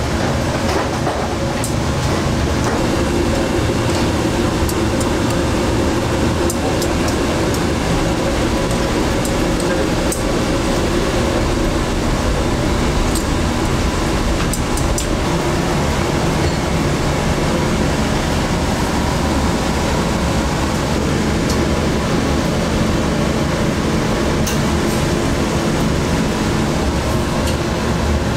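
Steady kitchen roar with a faint hum from the gas burners heating a row of earthenware pots of pork soup, with scattered light clicks of metal tongs as gloved hands arrange meat in the pots.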